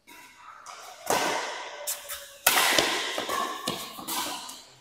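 Badminton rally: about four sharp racket hits on the shuttlecock, each echoing on in a large hall.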